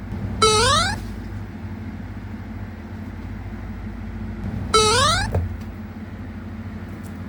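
A cat meowing twice, a few seconds apart: two short calls, each rising in pitch, over a steady low hum.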